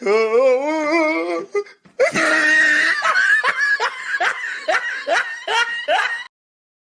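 A person laughing hard: first a long, wavering laugh, then after a brief break a run of short laughs, about two a second, which cuts off abruptly near the end.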